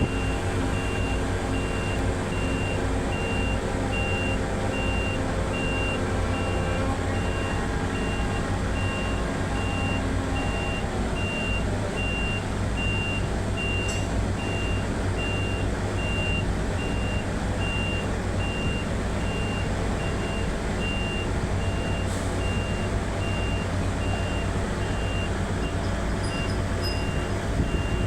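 A machine or engine running steadily, with a high beep repeating quickly and evenly, like a reversing alarm.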